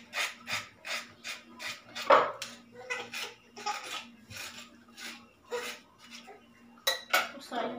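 Quick, repeated scraping and rubbing strokes of food being worked by hand over a bowl on a wooden cutting board, about three a second, with a louder knock about two seconds in and a couple of sharp clicks near the end. A faint steady hum runs underneath.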